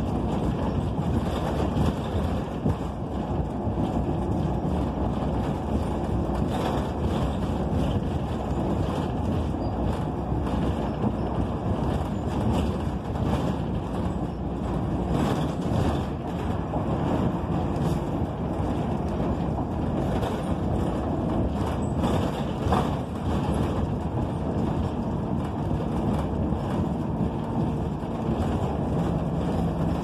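Inside a 2008 NABI 45C articulated transit bus cruising along a street: steady drone of its Cummins Westport ISL G natural-gas engine mixed with road and wind noise.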